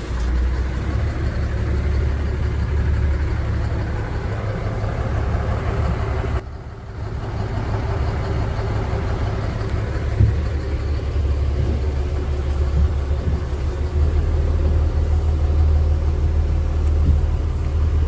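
Steady low vehicle engine rumble, broken by a brief drop about six seconds in, then running on unchanged.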